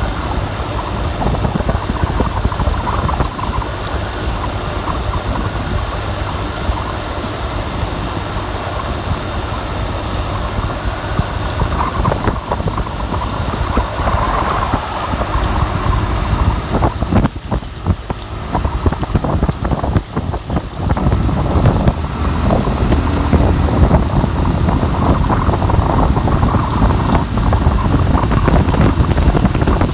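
Rain and gusting wind: a steady rush of noise that swells and eases with the gusts, with wind buffeting the microphone in a low rumble.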